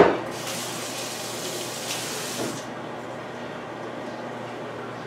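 A sharp knock, then a kitchen sink faucet runs with a steady hiss for about two seconds and is shut off.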